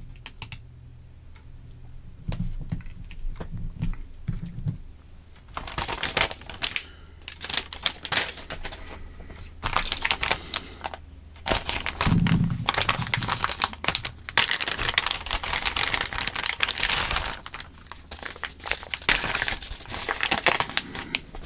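Plastic component cut tape being handled against a paper parts sheet: crinkling and rustling with many small irregular clicks, starting about two seconds in.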